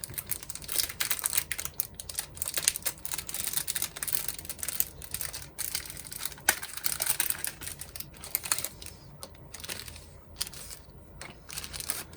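Plastic packaging of a screen protector kit being handled: fast, irregular crinkling and clicking, busiest in the first eight or nine seconds and sparser after.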